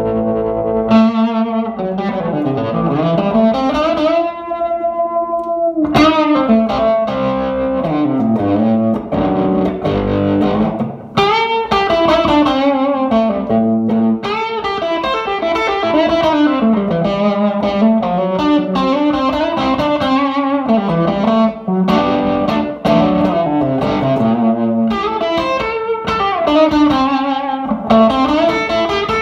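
Electric guitar played through a 1959 Airline 8500-S tube amplifier: a melodic single-note line with slides and bends, with some overdrive in the tone.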